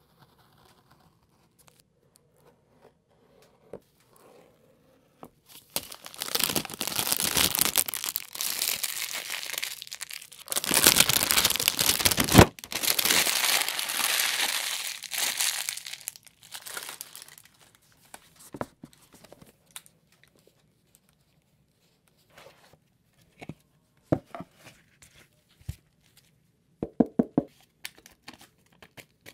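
Plastic shrink-wrap film being torn and crumpled off a cardboard smartphone box, loud and continuous for about ten seconds starting some five seconds in. Afterwards, scattered light taps and clicks of the box being opened and its paper inserts handled, with a quick run of clicks near the end.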